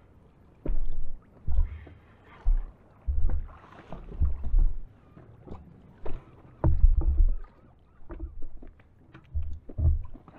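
Choppy water slapping against the hull of an inflatable boat in irregular low thumps, with buffeting on the microphone.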